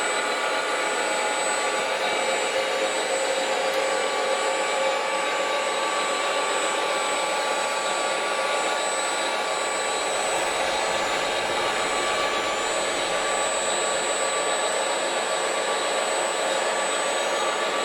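Electric motors and gear drives of scale RC construction models running steadily: an even whirr with several steady whining tones over a hiss.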